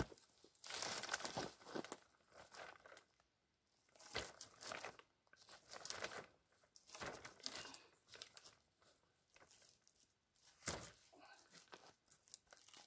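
Black plastic drum-liner bags crinkling and rustling in scattered bursts as the wooden tripod poles under the bed are shifted, with a couple of sharp knocks about four and eleven seconds in.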